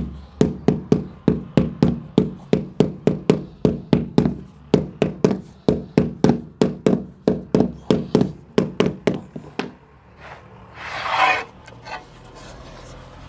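Rubber mallet tapping a marble floor tile down into its bed of mortar: a steady run of hollow knocks, about three a second, that stops about ten seconds in. A short scraping rasp follows about a second later.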